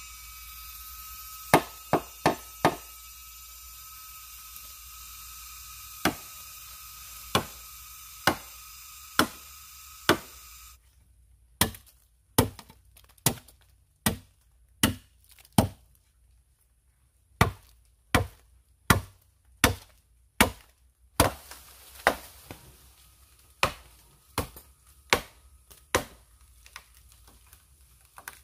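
Machete chopping at the base of a standing bamboo culm: a long run of sharp chops, roughly one a second, in bursts with short pauses. A steady high drone sits behind the first chops and cuts off about eleven seconds in.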